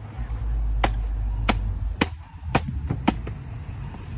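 Machete chopping into an older coconut with a dry husk: five sharp chops about half a second apart.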